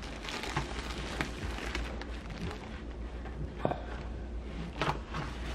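Rustling and handling of craft supplies on a work table while lace is rummaged for, with a few sharp clicks and knocks.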